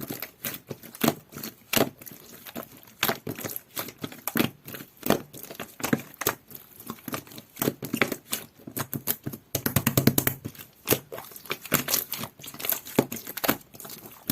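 Floam slime being pressed and stretched by hand, giving a steady stream of sticky crackles and pops, with a denser flurry of them about ten seconds in.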